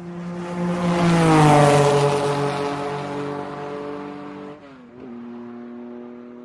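End-card sound effect of an engine sweeping past: it swells, drops in pitch as it goes by and fades. After a brief break about five seconds in, a lower steady hum carries on and fades out.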